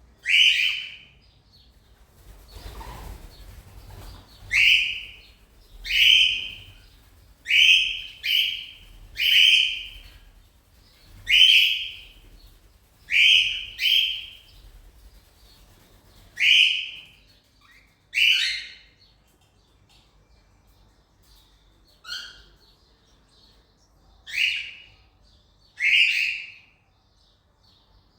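Cockatiel calling over and over: short, shrill, loud calls, about fifteen of them, one every second or two, with a few seconds' lull past the middle. There is a soft rustle a few seconds in.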